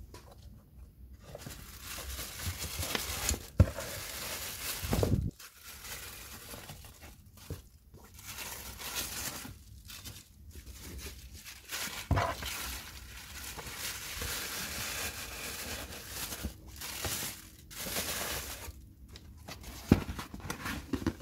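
Thin tissue paper rustling and crinkling as it is folded over sneakers in a cardboard shoebox, with a few sharp knocks of the box being handled. The cardboard lid is put on near the end.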